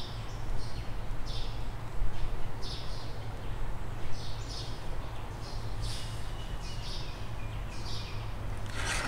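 Small birds chirping over and over in quick short calls, over a steady low hum. A brief swish comes near the end.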